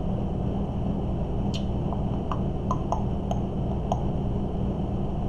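Light clicking, about seven small clicks spread over two and a half seconds, over a steady low hum.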